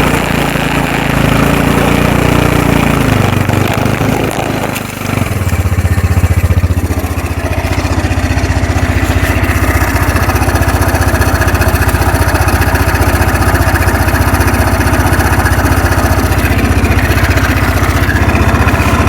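Kawasaki 300 4x4 ATV's single-cylinder four-stroke engine revving up and back down over the first few seconds, then running steadily with a rapid, even pulse as the ATV drags a fallen tree on a rope.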